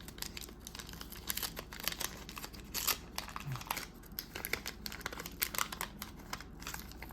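Waxed-paper wrapper of a 1984 Fleer trading-card wax pack being torn open and crinkled: a run of irregular crackles and rustles, a few sharper ones among them.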